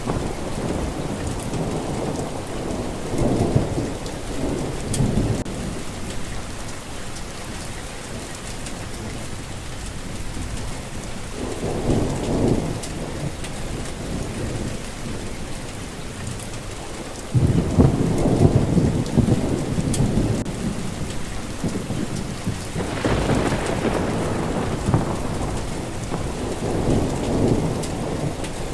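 Steady rain falling, with thunder rolling in low rumbles several times. The loudest roll comes on suddenly a little past halfway, and another strong one follows near the end.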